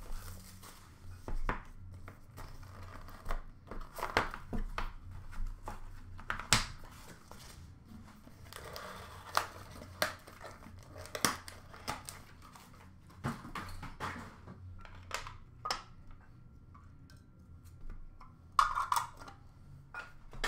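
Trading-card box and its packaging handled and opened by hand: cardboard and wrappers crinkling and tearing in short stretches, among many sharp clicks and taps as packaging and card cases are set down.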